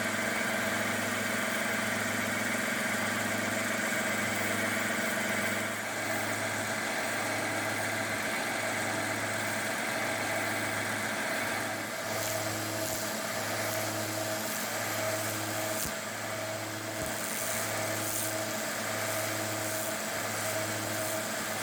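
Small 1x30 belt sander running with a conditioning belt as a steel screwdriver tip is refined against its top wheel: a steady motor hum with a regular low pulse about once a second and a hissing, scratchy sound from the belt, which grows rougher in the second half.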